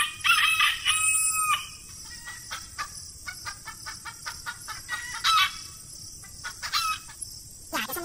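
A rooster crowing in the first second and a half, followed by chickens clucking with quick rapid clucks and a few short louder calls.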